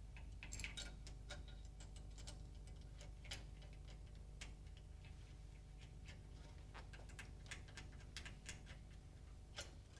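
Faint, irregular metallic clicks and taps as steel high-pressure diesel injector pipes and their union nuts are handled and started onto the injectors, over a low steady hum.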